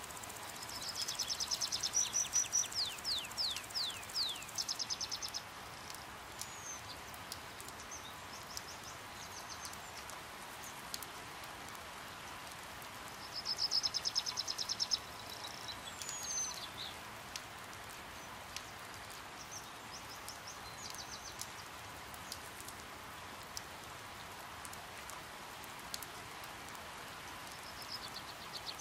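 Hummingbirds at a feeder giving high, rapid, twittering bursts of notes, four times, each a second or a few seconds long, over a steady hiss of light rain.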